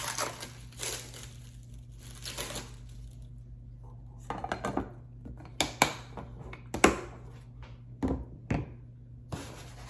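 Plastic packaging crinkling and rustling, then a series of sharp clicks and knocks as plastic food-storage containers and their lids are handled.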